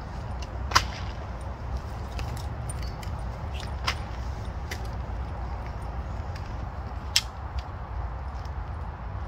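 Three sharp clicks or snaps, about a second in, about four seconds in and near the end, with softer ticks between, over a steady low rumble.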